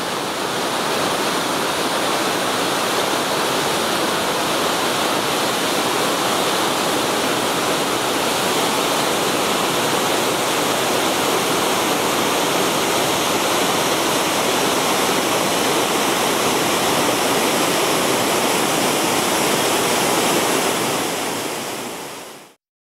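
Waterfall pouring into a pool: a steady rush of water that fades out near the end.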